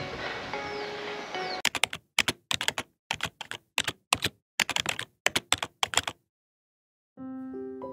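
Keyboard typing sound effect: many quick key clicks in irregular bursts for about four and a half seconds, then about a second of silence. Before the typing starts there is a brief stretch of outdoor ambience under soft music, and piano music begins near the end.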